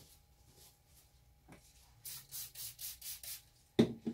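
A quick run of six or seven brisk rubbing strokes, about four a second, then a single sharp knock near the end.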